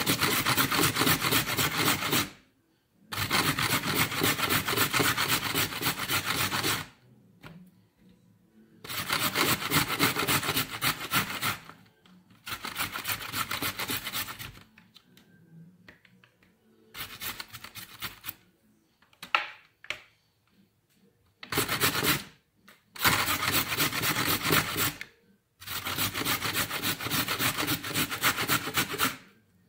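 Carrot being grated on a stainless steel box grater: bouts of quick rasping strokes, about eight runs of a second to several seconds each, broken by short pauses.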